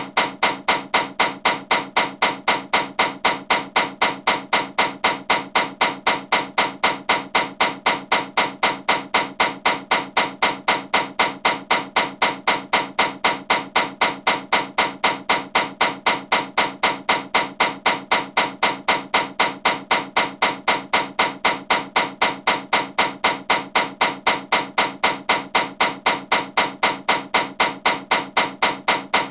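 A very loud ceiling fan running and knocking in a steady, even rhythm of sharp clicks, about three to four a second.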